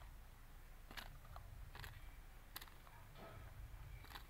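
A few faint, sharp clicks at irregular intervals: a desi hen's beak pecking at a leaf and the dirt.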